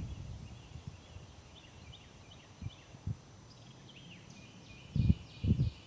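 Faint bird chirps in the background, with a few short, dull low thumps, two of them close together about five seconds in.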